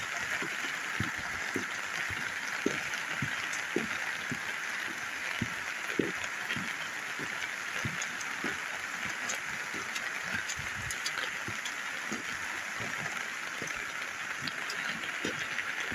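Muddy storm runoff rushing steadily down a flooded arroyo, with irregular raindrops tapping close by.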